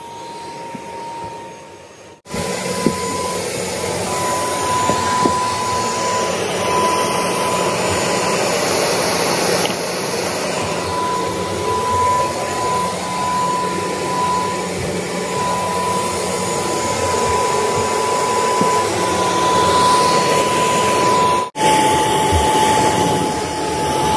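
Upright vacuum cleaner running on carpet: a steady motor whine over a rushing hiss of suction. Quieter for the first two seconds, then loud; near the end it breaks off abruptly and comes back with the whine a little lower.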